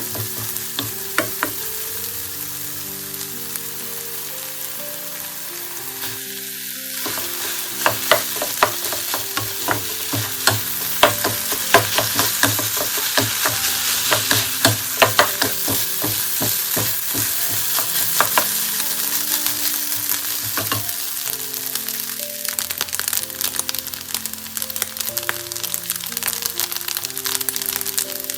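Fried rice with beef and garlic sizzling in a hot oiled and buttered pan as it is stir-fried, with a utensil clicking and scraping against the pan. The tapping is busiest in the middle stretch, over a soft melodic background tune.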